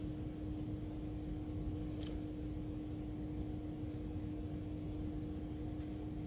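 Steady mechanical hum with a low rumble, holding one constant pitch, with a faint light click about two seconds in.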